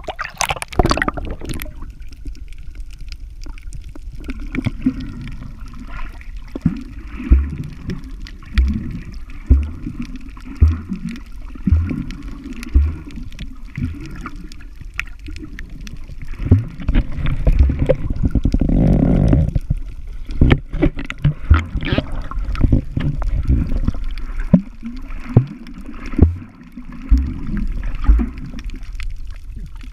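Muffled underwater sound from a camera held below the surface: a low water rumble and sloshing, with repeated dull low thumps from the swimming movements, and a louder swell of water noise about two-thirds of the way in.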